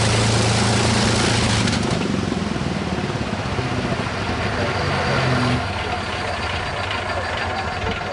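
Rolls-Royce Merlin V12 engine of a de Havilland Mosquito running steadily, then shut down about two seconds in, its propeller winding down. The sound falls away in steps as the engine runs down.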